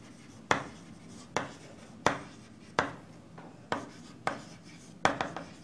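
Chalk writing on a green chalkboard: sharp taps and short strokes, about one a second, as letters are written, with two quick taps close together near the end.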